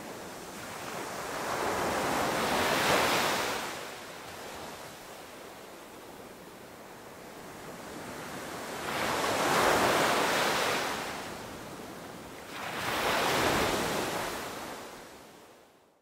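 Small ocean waves washing in and breaking over flat rock ledges, swelling three times over a steady wash of surf, then fading out at the end.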